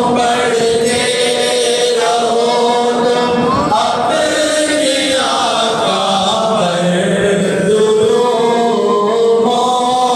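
Men's voices chanting the salam, a devotional salutation to the Prophet, in unison: a reciter amplified through a microphone leads and the congregation sings along, in long held notes.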